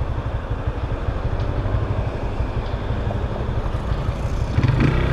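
Yamaha XT660's single-cylinder engine idling with a steady low pulsing beat, getting louder near the end.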